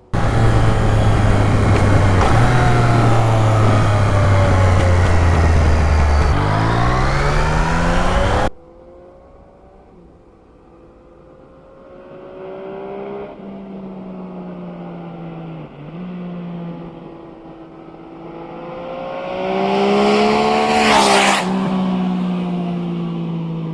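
Yamaha XSR900's inline-three engine through a MIVV Oval carbon slip-on with its baffle fitted. It runs loud and close for about eight seconds, its pitch falling near the end before the sound cuts off abruptly. The bike is then heard further off, coming closer, passing close near the end with a rush and a drop in pitch, and pulling away.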